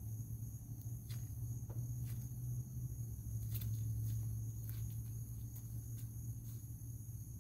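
Crickets chirring in a steady high-pitched chorus over a low steady hum, with a few faint, light taps and scuffs as a kitten pads and pounces on concrete.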